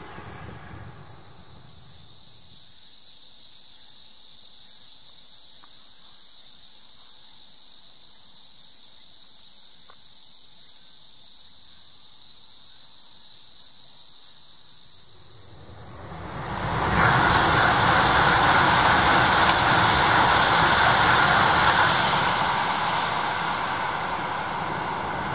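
Insects buzzing in a steady high-pitched chorus for about fifteen seconds. Then a loud rushing noise cuts in suddenly and drowns them, easing off over the last few seconds.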